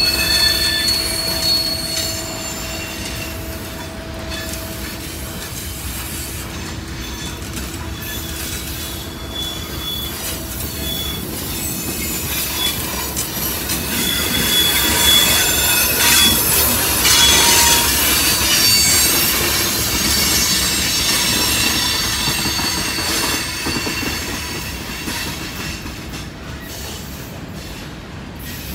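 Freight cars rolling past close by, their wheels squealing in long steady high tones over the rumble and clatter of the train. The rolling noise grows louder about halfway through, then eases off near the end.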